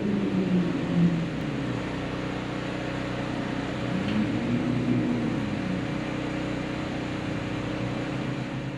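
Hurricane wind howling: a steady rush with wavering tones that slide down and then rise and fall.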